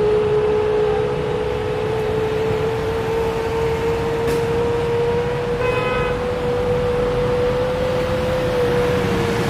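CFM LEAP-1B jet engines of a Boeing 737 MAX 8 running with a steady whine over a rushing roar, the whine rising slightly in pitch. About six seconds in, a brief higher tone sounds over it.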